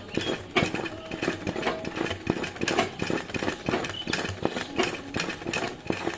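Domestic sewing machine running, its needle clattering through the fabric in uneven spurts as it stitches down the edges of appliqué petals.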